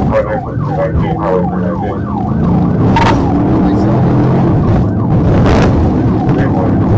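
Police cruiser's siren yelping rapidly for the first two seconds or so, then fading under the cruiser's engine pulling hard as it accelerates, with tyre noise on the dirt road. Two sharp knocks come about three seconds and five and a half seconds in.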